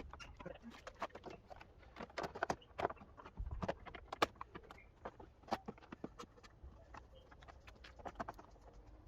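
Irregular light clicks and taps of metal and plastic car parts and tools being handled, a few sharper knocks among them.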